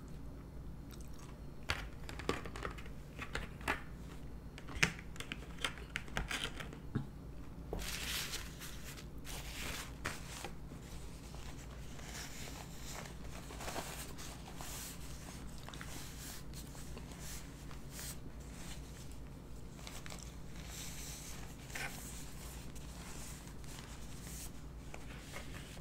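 Eating sounds: scattered sharp clicks and taps of a fork and chewing of deli chicken salad for the first several seconds, then a paper napkin rustling and crinkling as it wipes the mouth about eight seconds in, with fainter napkin rustles later. A steady low hum runs underneath.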